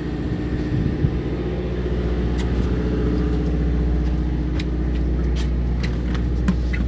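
A fishing boat's engine running with a steady low drone, with a few faint clicks over it.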